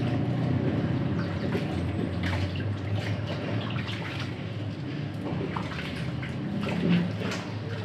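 Water splashing and dripping as a whole pineapple is washed by hand, over a steady low hum.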